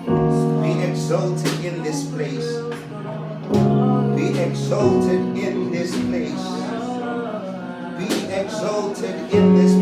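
Slow worship music: held keyboard chords that change every second or two, with plucked or strummed guitar.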